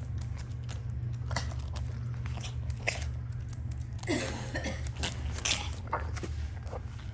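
Small dog chewing and licking at something on the floor: irregular wet clicks and smacks, with a denser, louder stretch about four seconds in.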